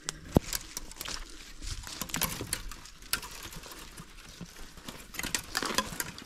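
Footsteps crunching and crackling through dry leaf litter on the forest floor, an uneven run of small crackles, with one sharp crack about half a second in.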